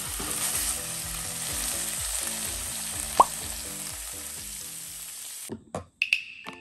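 Cabbage, carrot and tuna sizzling as they are stir-fried in a nonstick frying pan, with a spatula stirring and a single sharp clink about three seconds in. The sizzle cuts off suddenly about five and a half seconds in.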